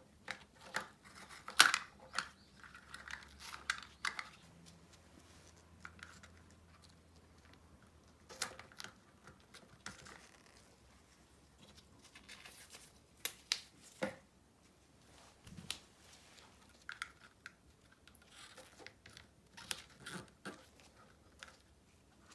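Scattered clicks, taps and rustles of small parts and tools being handled during a headset repair, with a sharp click about one and a half seconds in the loudest.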